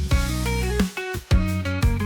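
Background music led by a plucked guitar, with notes changing about twice a second.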